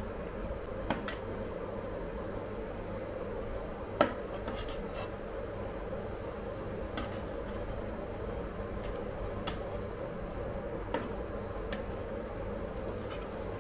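Metal spatulas scraping and tapping on a −30 °C ice cream roll cold plate as the banana ice cream is worked. There are scattered sharp clicks, the loudest about four seconds in, over the steady hum of the plate's machinery.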